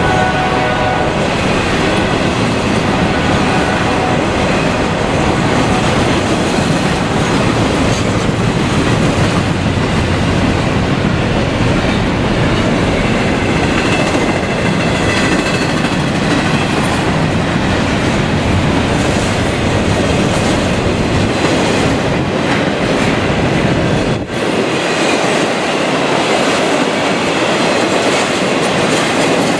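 CSX intermodal freight cars, trailers and double-stack containers on well cars, rolling past close by: a steady, loud rumble of wheels on rail with clickety-clack over the joints. Faint wheel squeal rises around the middle.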